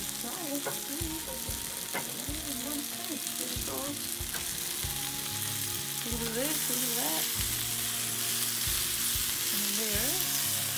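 Sausages, pierogies, peppers and onions sizzling steadily in a frying pan on a camp stove, with a fork scraping and turning the food in the pan.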